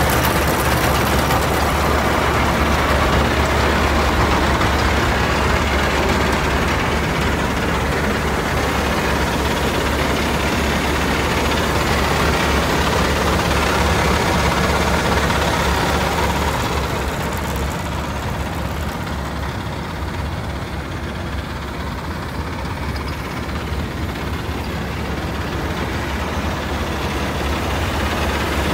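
1974 Ford feed truck's engine idling steadily, a deep even running sound, a little quieter in the latter part.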